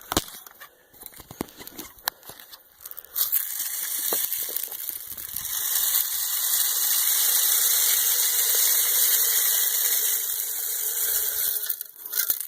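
Birdseed being poured into a bird feeder: a steady rushing hiss that starts about three seconds in, swells, and stops just before the end, after a few clicks and rustles of handling.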